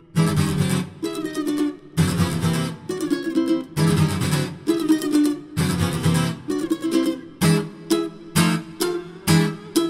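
An Epiphone cutaway acoustic guitar and a ukulele strumming chords together, coming in sharply right after a brief pause. The strokes turn shorter and quicker in the second half.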